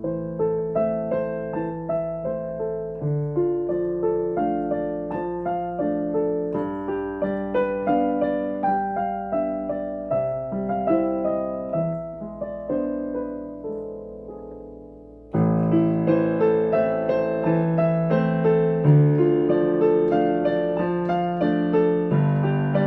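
Instrumental piano music, a steady flow of melody notes over chords. About fifteen seconds in it fades low, then comes back abruptly louder and fuller.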